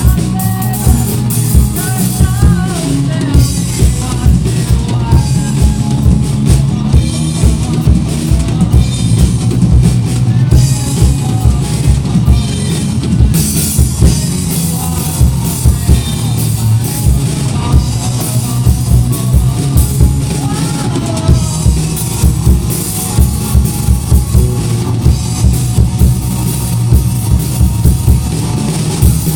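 Rock music played by a band, with a drum kit keeping a steady beat.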